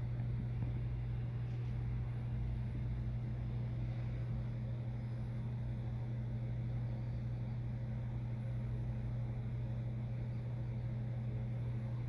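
Steady low machine hum at a constant pitch, running evenly without change.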